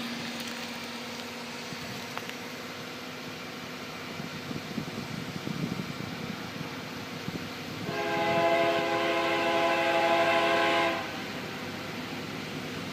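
CSX freight locomotive's air horn sounding one steady blast of about three seconds, several notes at once, from about eight seconds in, then cutting off sharply. Before it, a low rumble of the approaching train.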